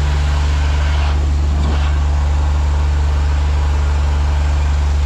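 Engine of a high-pressure sewer jetter running steadily, a deep even hum that is very loud.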